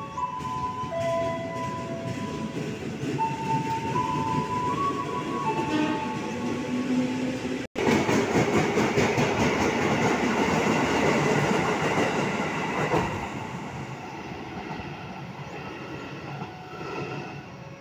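Electric commuter trains at a station platform. For the first few seconds a train rumbles with a series of held tones stepping up and down in pitch. After a brief break, a train passes close with loud wheel-on-rail noise and clatter, which fades about 13 s in to a quieter rumble.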